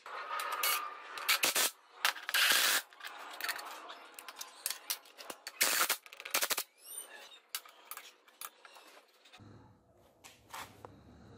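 A cordless driver running bolts into a steel plate on a gearbox, with rapid rattling and clanking bursts of metal on metal and a short rise and fall in the motor's pitch. After about nine seconds a steady low hum takes over.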